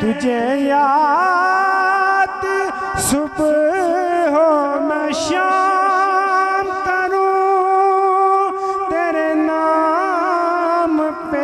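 A male naat reciter singing a devotional Urdu naat into a microphone, drawing out long ornamented notes that bend up and down in a wordless melisma.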